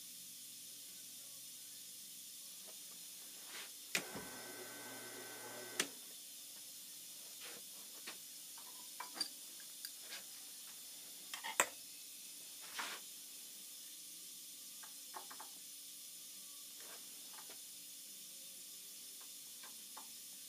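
Small metal clicks and knocks of tools being handled on a milling machine table and vise while a dial indicator is set up, over a faint steady hiss. About four seconds in, a short rattling stretch runs between two clicks, and the sharpest knock comes about twelve seconds in.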